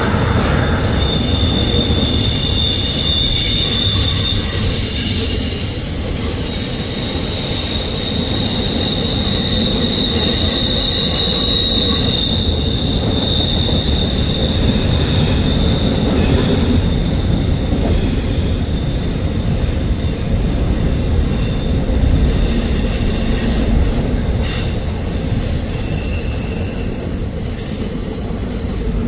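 Norfolk Southern double-stack intermodal container cars rolling around a curve: a steady low rumble of wheels on rail, with high-pitched wheel squeal from the bend coming and going.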